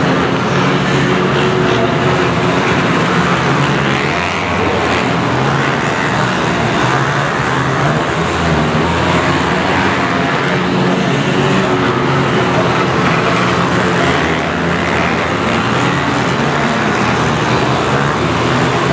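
Several small minibike engines racing together, their pitches rising and falling as the riders rev through the laps. The sound carries in a large indoor arena hall.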